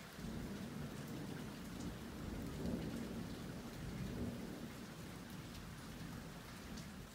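Steady rain falling with scattered drops ticking, and a low rumble of thunder that comes in just after the start, swells in the middle and slowly eases off.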